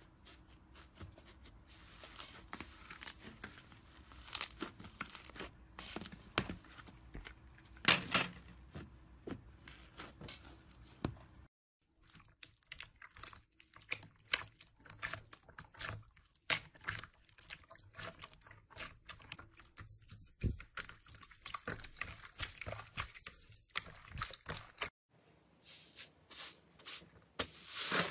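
Hands poking and pressing slime in plastic tubs: irregular small crackles, pops and soft squelches, from a fluffy rainbow slime, then a clear red jelly slime, then a pale blue cloud slime. The crackling is loudest near the end.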